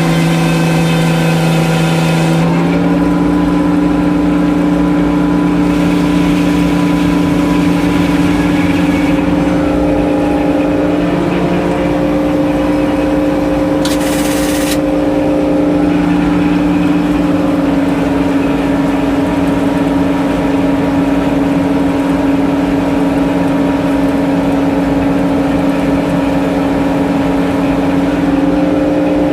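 Sawmill's circular saw and its power unit running steadily, with a continuous hum. The pitch shifts about two seconds in, and a brief hiss comes about halfway through.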